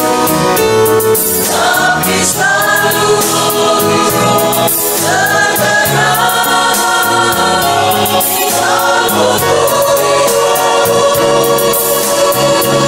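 A mixed choir singing a song in chorus over an instrumental backing with light percussion, holding long notes.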